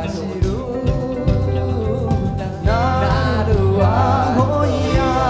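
Music: a Mandarin pop-rock ballad with full band, bass and drums under a sliding, wavering lead melody.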